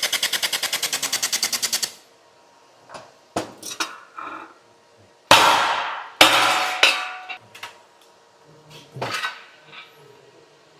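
Pulse laser welder firing a rapid, even train of sharp pops, about ten a second, for roughly two seconds as it spot-welds. Then come scattered knocks and two louder metallic clatters with a ringing tail.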